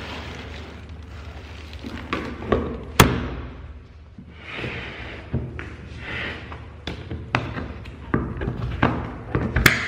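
Hard-shell suitcase being shut and fastened. The lid closes with a sharp slam about three seconds in. Rubbing and sliding noises follow, then a run of clicks and knocks from the catches and TSA combination lock, ending in another sharp click.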